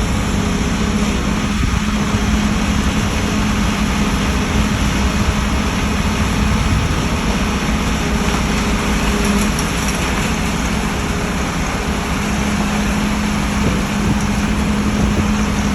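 A heavy diesel engine of concrete-pouring machinery running steadily, a constant low hum over loud mechanical noise.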